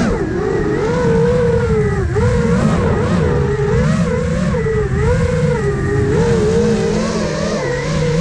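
Five-inch FPV quadcopter (iFlight Nazgul Evoque F5) motors and propellers whining, the pitch rising and falling constantly as the throttle changes through the flight, over a rough low rumble.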